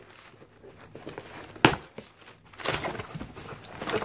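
Handling noises from a cardboard box being opened: rustling of the packaging, with one sharp click about one and a half seconds in.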